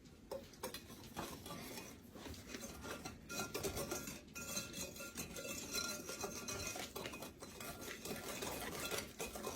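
A whisk stirring eggs, sugar and flour in a mixing bowl: faint, irregular scraping and light clinking of the whisk against the bowl.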